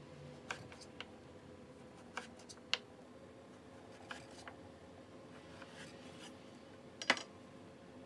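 Chef's knife slicing a raw potato on an end-grain wooden cutting board: short, irregular knocks as the blade goes through and meets the board, about eight in all, the loudest near the end.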